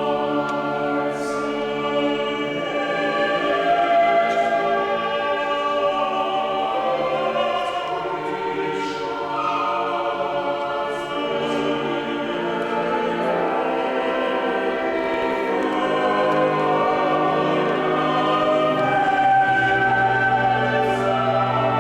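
A choir singing long, held chords.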